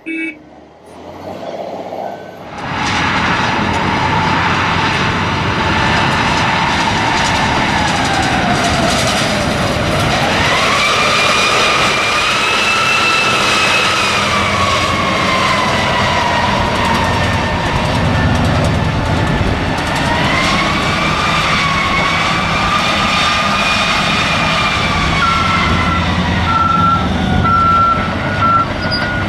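Komatsu 930E-4 diesel-electric haul truck driving loaded: a steady low rumble under a whine from its electric drive that rises and falls in pitch twice. It fades in about two seconds in, and a run of short beeps like a reversing alarm starts near the end.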